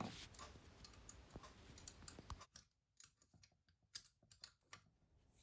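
Near silence: faint room hiss, then a few faint, sharp clicks spread over the second half.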